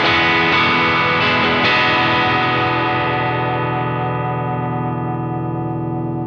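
Single-coil S-style electric guitar played with overdrive: a few strummed chords, then a last chord left to ring and slowly fade.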